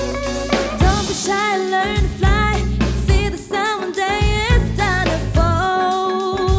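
Jazz-fusion band playing: a woman sings held notes with vibrato over drum kit and bass.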